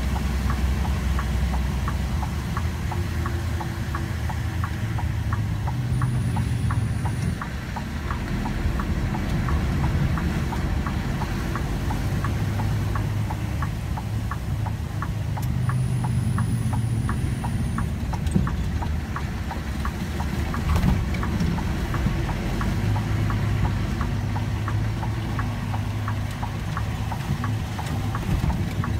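Vehicle engine running low as the vehicle drives slowly along a wet, muddy track, with a regular light ticking about twice a second.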